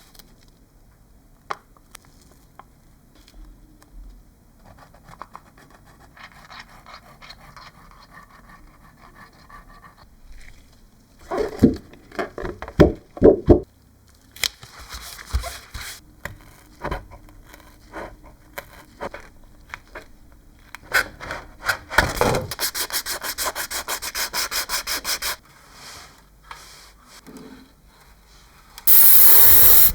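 Irregular hand rubbing and sanding strokes on a surface, with a loud cluster of strokes about halfway in and a fast, even run of strokes later. A loud spray hiss starts near the end.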